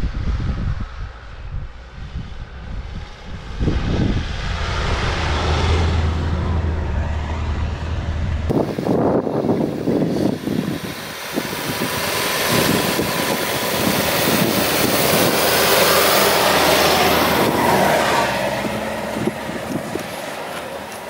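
Nissan Pathfinder's engine pulling under load as the SUV climbs a deep-snow track. About eight seconds in the sound changes abruptly to a loud, even rush of noise over the engine.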